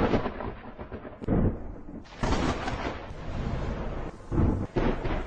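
Electric arc welding crackling and sputtering, a dense noise that surges several times over a low rumble.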